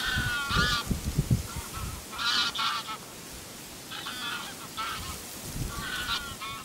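Hand-blown goose call sounded in short honking bursts of two or three notes, about five times, to lure passing geese in. Low wind rumble on the microphone underneath.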